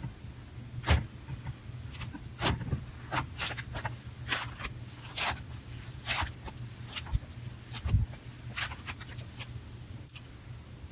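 Slime being squeezed and kneaded by hand, giving irregular wet clicks and pops about once or twice a second.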